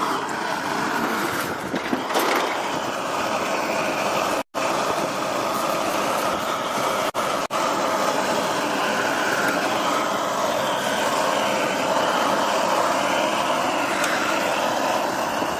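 Gas burner running steadily with a continuous rushing hiss as it heats a small copper pan for tinning; the sound cuts out for a moment about four and a half seconds in.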